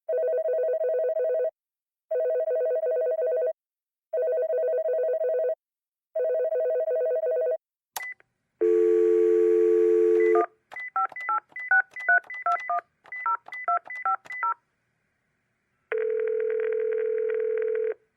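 A telephone ringing in four repeated trilling bursts, then a click, a dial tone for about two seconds, and a quick run of touch-tone keypad beeps with button clicks. Near the end a single steady line tone sounds for about two seconds.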